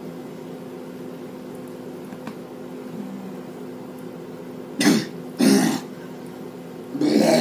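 A person coughs twice, short and sharp, about half a second apart, around five seconds in, over a steady low hum.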